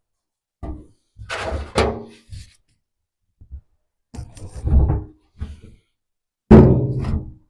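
Metal barrow tub being set onto its frame: a series of clunks and knocks with a short metallic ring, the heaviest thunk near the end.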